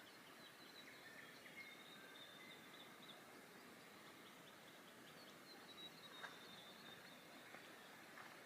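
Near-silent bush ambience with faint, high-pitched bird chirps, a quick run of short notes and a few scattered ones.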